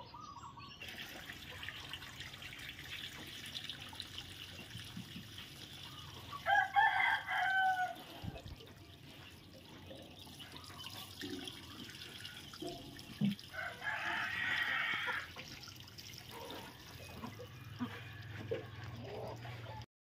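A rooster crows about six seconds in, with a second, rougher call around fourteen seconds, over a faint steady trickle of running water.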